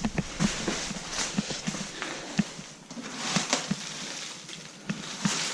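Footsteps and scuffs on a gritty, debris-strewn floor: irregular clicks, knocks and brief scrapes.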